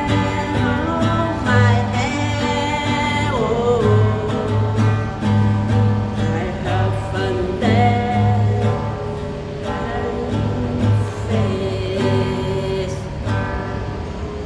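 A song played on acoustic guitar with a singing voice, over a steady pulsing bass beat.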